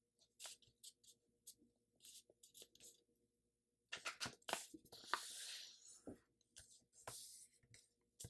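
Faint rustling and scraping of a sheet of Astrobrights letter-size paper as fingers slide over it and press a diagonal fold into a crease. Short scrapes come scattered at first, with a cluster of louder, longer strokes about four to six seconds in.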